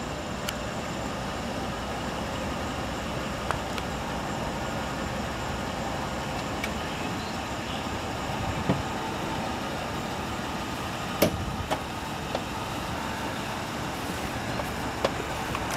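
Ford Triton 4.6L V8 of a pickup truck idling steadily. A few sharp clicks and knocks in the second half, the loudest about eleven seconds in.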